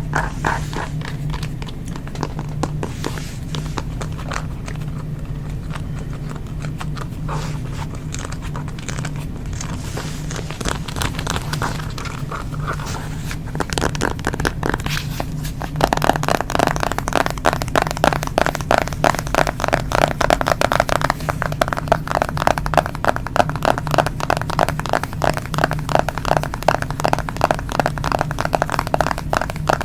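Fingernails tapping on a smartphone and its case: scattered taps at first, then from about halfway a fast, steady run of taps. A low hum runs underneath.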